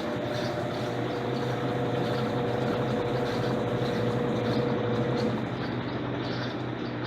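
Electrolux LTC10 washing machine running: a steady motor whine over a hum and mechanical noise. The whine drops away about five seconds in.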